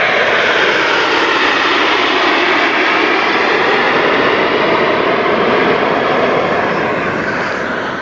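Formation of Canadair CT-114 Tutor jets flying past, a loud, steady jet rush that eases off near the end.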